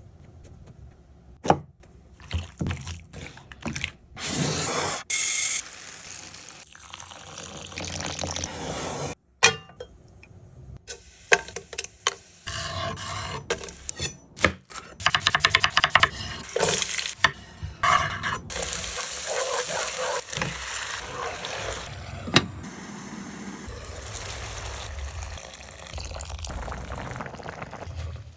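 A sequence of kitchen cooking sounds cut together: liquids pouring, stirring in a pot, and utensils knocking and clinking against cookware, with abrupt changes between shots.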